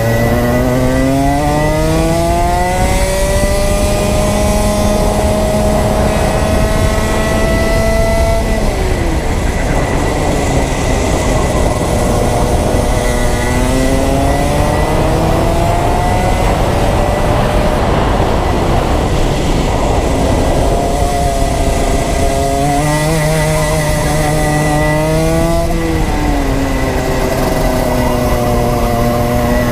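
Rotax Max 125 cc two-stroke kart engine revving hard, heard onboard. Its pitch climbs four times under acceleration and drops away in between as the throttle is lifted.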